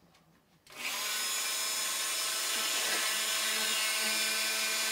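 A rotary tool with a small steel saw-blade disc on a flexible-shaft handpiece is switched on less than a second in and comes straight up to speed, then runs on with a steady whine.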